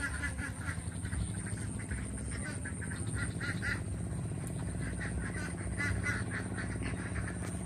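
Birds calling in clusters of short, quickly repeated notes, over a steady low rumble.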